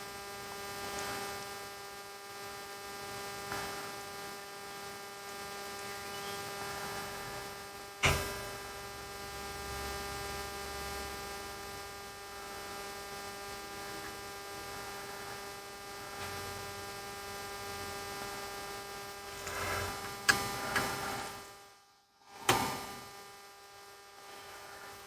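Steady electrical hum, one tone with a row of overtones above it. A sharp click comes about eight seconds in, and a few small knocks near the end. The sound drops out completely for a moment near 22 seconds.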